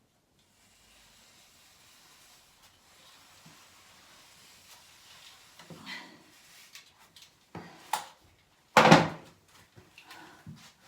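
Handling noises from hanging wall covering: faint rustling, a few light knocks about six and eight seconds in, and one louder brief clatter about nine seconds in.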